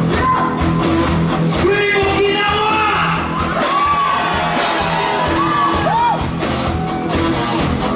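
Live rock band playing: drums, bass and electric guitar, with vocals sung and called out over the band.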